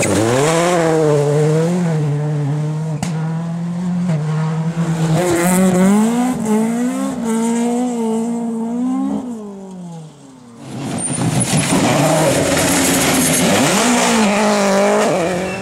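Skoda Fabia WRC rally car's turbo engine at full throttle, its note climbing and dropping as it changes gear and pulls away. It fades about ten seconds in, then another rally car's engine comes up loud, revving and shifting as it passes.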